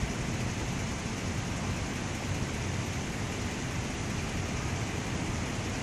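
Steady street ambience: a low rumble of traffic and a soft hiss, with no shots or other distinct events.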